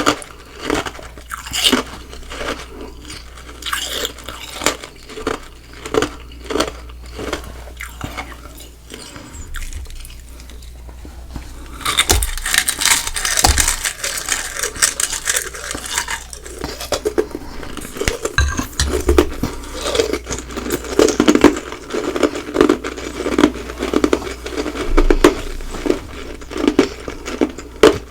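Close-miked mouth biting and chewing ice, crunch after crunch. The crunches come one by one at first, ease off for a moment, then turn louder and denser about twelve seconds in.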